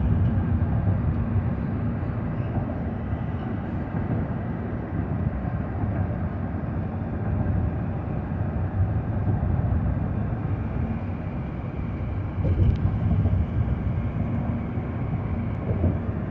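Car driving at speed: a steady low rumble of tyres and engine, with one brief louder bump about twelve seconds in.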